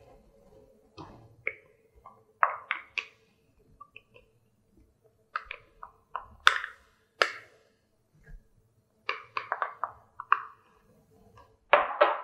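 Wooden spatula knocking and scraping against a saucepan and a margarine tub as margarine is scooped into the pan: scattered light clicks and taps, with a few sharper knocks about halfway through and near the end, over a faint steady hum.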